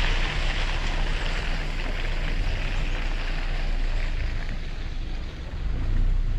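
Car driving slowly along a muddy dirt track: a steady low engine and tyre rumble, with an airy hiss that fades over the first few seconds.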